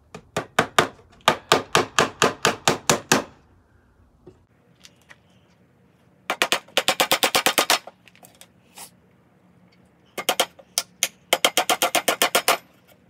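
A claw hammer driving nails into wooden boards: three quick runs of a dozen or more sharp blows each. The second run starts about six seconds in and the third about ten seconds in, with a few stray knocks between them.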